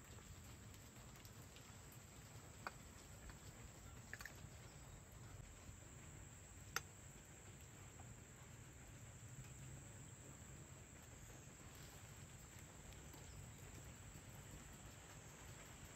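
Near silence: faint steady hum and a thin high whine, with three light clicks of a bowl against a metal flour sieve as flour is poured and sifted, the sharpest about seven seconds in.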